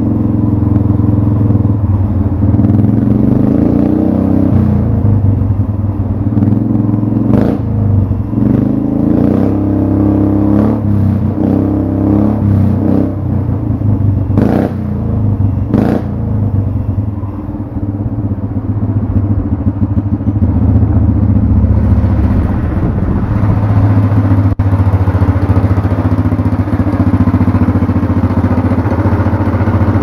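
Tillotson 212cc single-cylinder four-stroke go-kart engine running loud through a 3 ft open straight-pipe header with no muffler, a deep, bass-heavy exhaust note. Several sharp cracks sound over it between about 7 and 16 seconds in.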